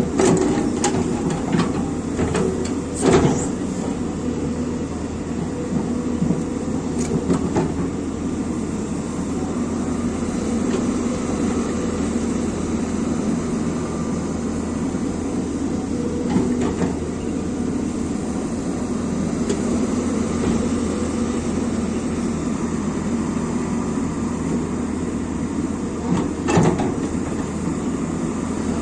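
Excavator's diesel engine and hydraulics running steadily, with a few sharp knocks from the machine's working gear about 3, 7, 16 and 26 seconds in.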